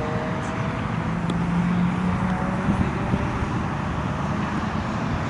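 Steady outdoor rumble of distant road traffic, with one vehicle's engine hum standing out for a second or two.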